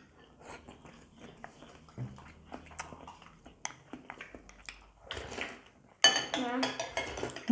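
Spoons and chopsticks tapping and scraping against ceramic bowls and plates while eating: a string of light, irregular clicks. Near the end, a short burst of voice.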